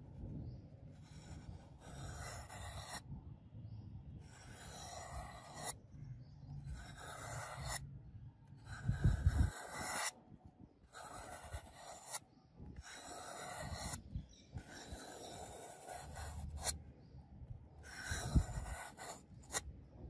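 A sharp curved butterfly-knife blade slicing through a block of green floral foam, cut after cut. Each cut is a hissing scrape lasting a second or two, over a low rumble.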